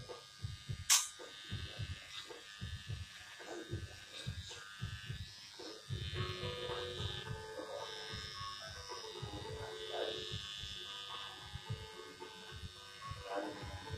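Electric hair clippers running with a steady buzz as they cut short hair, with a sharp click about a second in.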